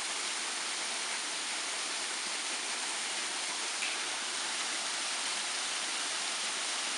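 Steady rush of a small waterfall pouring over a rock ledge and splashing onto the rocks below, an even unbroken hiss.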